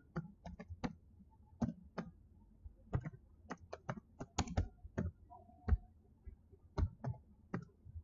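Computer keyboard typing: about twenty quiet, unevenly spaced keystrokes, bunched more closely together in the middle.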